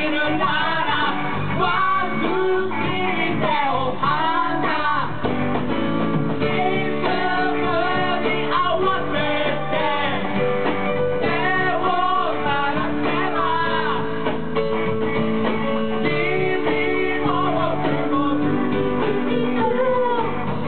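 A band playing live, a singer over amplified guitars, heard from among the audience.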